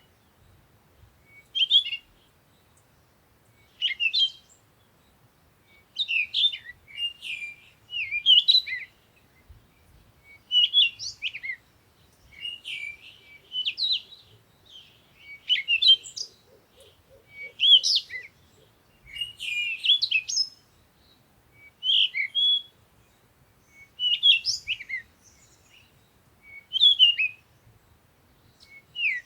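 Songbird singing short, high chirping phrases, one about every two seconds.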